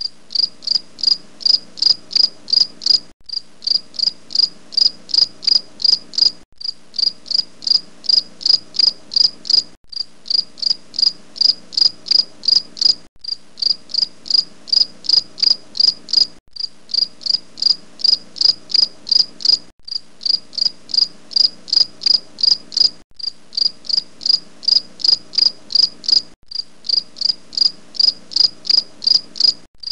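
An insect chirping in even, high-pitched pulses, about three a second, with a short break roughly every three seconds.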